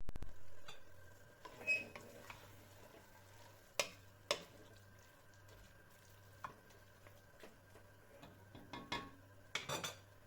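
A spoon stirring in a pot, with scattered clinks and knocks of metal against the pan; the loudest come about four seconds in and near the end.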